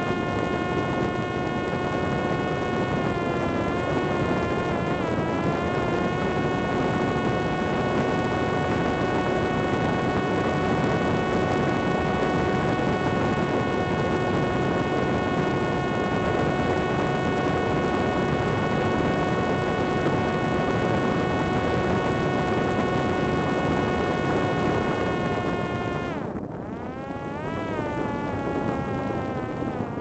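Parrot Disco drone's electric motor and pusher propeller whining at a steady high pitch over a rush of wind noise. About 26 seconds in, the pitch drops sharply as the motor slows, then climbs partway back up.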